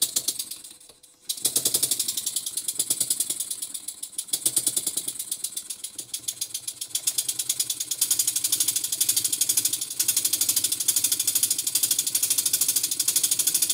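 Basset-Lowke Tangye model steam engine starting about a second in and running fast on compressed air, its exhaust a rapid, even puffing hiss. Its valve timing has just been fine-tuned so that it runs smoothly and freely.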